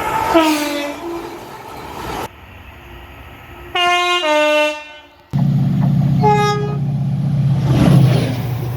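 Train horns in several short clips cut together: a chord that falls in pitch as the train goes by, then a louder multi-note blast about four seconds in that also drops in pitch. A short toot follows, over the low steady hum of a passing train that swells near the end.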